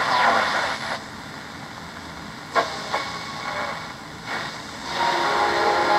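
Shortwave radio receiver static with repeating sweeping chirps of CODAR coastal ocean radar interference, which cut out about a second in. It is then tuned through quieter hiss with a couple of clicks, and a station with several steady held tones comes in about five seconds in.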